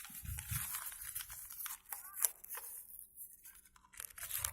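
A sheet of A4 paper being folded in half and creased by hand: scattered crisp rustles and crackles of the paper, with one sharper crack about two seconds in.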